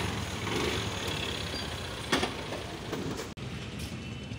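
Motor vehicle engine idling with a steady hum of traffic around it. There is a short knock about two seconds in, and a brief dropout a little after three seconds.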